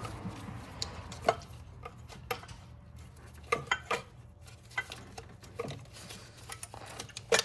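Scattered light clicks and knocks of hand work as a rubber coolant hose is slid onto the coolant crossover pipe, with a sharper knock about a second in and another near the end.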